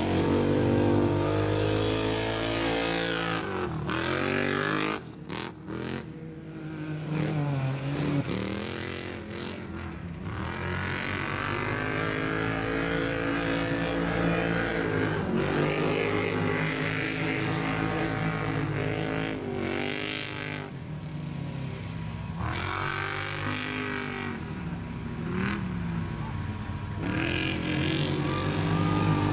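Side-by-side UTV engines running and revving, the pitch repeatedly rising and falling as they accelerate and back off. There is a short drop in level about five seconds in.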